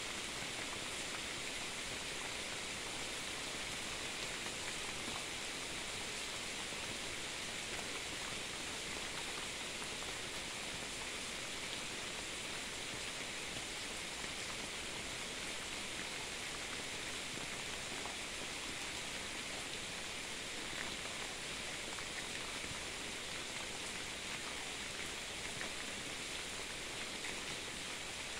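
Steady rain falling, an even hiss that holds at one level, with no thunder.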